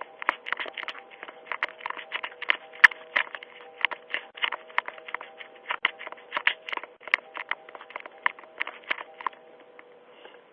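Rapid, irregular tapping and scraping right at a Ring doorbell's microphone, several taps a second, stopping near the end, over a faint steady hum from the doorbell's audio.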